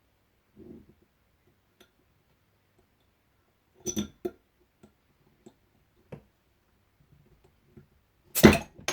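Stainless steel carabiner bottle opener clinking and clicking against a glass bottle and its cap as it is fitted and levered, with scattered light ticks, then a louder sharp crack near the end as the cap comes off.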